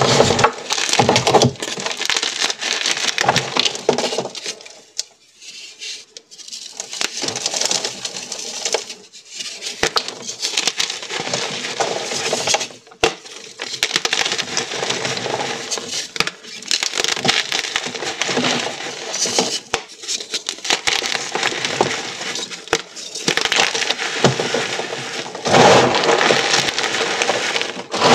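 Blocks of dyed gym chalk being crushed and crumbled by hand: dry crunching and crackling of chalk breaking into pieces and powder. It eases off about five seconds in and comes back, with the loudest crunching near the end.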